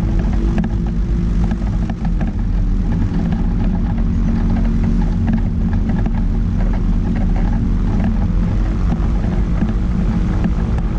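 Quicksilver Sport 2S ultralight aircraft's engine and propeller running steadily at an even power setting.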